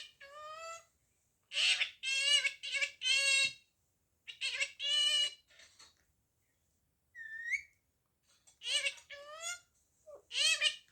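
Parrot imitating speech in short high-pitched bursts of babble, with a brief rising whistle about seven seconds in.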